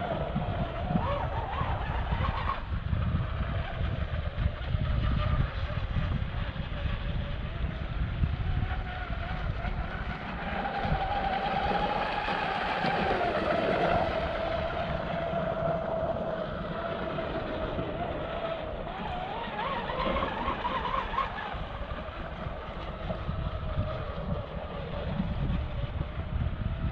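Brushless motor of a Pro Boat Blackjack 42 RC catamaran running on 8S, a high whine that rises and falls in pitch as the throttle changes while the boat runs across the water.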